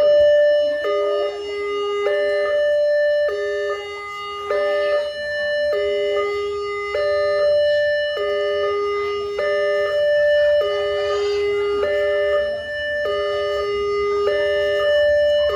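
Railway level-crossing warning siren sounding a steady two-tone alarm. It alternates a longer low tone with a shorter higher tone, one high-low cycle a little over every second.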